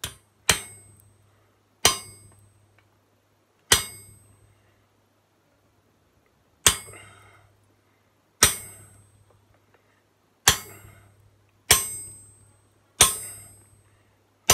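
A hammer drives a hand-held chisel into a red-hot bar on an anvil, splitting the bar. There are about nine ringing metal-on-metal blows, one to three seconds apart, each fading quickly.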